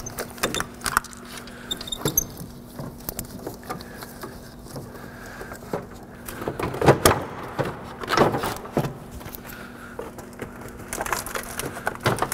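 Plastic radiator cooling-fan shroud knocking, scraping and clicking against hoses, lines and the radiator as it is worked down into the engine bay. The clicks are irregular, with a louder run of knocks about seven to eight seconds in.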